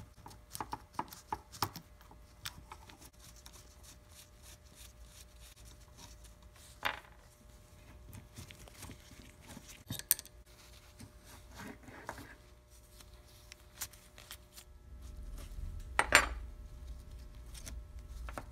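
Small metal parts of a Shimano Deore XT rear derailleur clicking and clinking as it is taken apart by hand and with an Allen key on a wooden workbench: scattered light taps, with a sharper knock about 16 seconds in.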